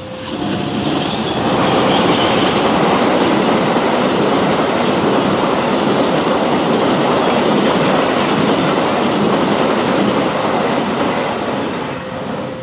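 The KA Argo Wilis passenger train passing over a level crossing close by, a loud steady rush of wheels on rail. It builds within the first two seconds and eases off near the end. The crossing's two-tone warning bell, alternating between two notes, sounds faintly beneath it at the start and the end.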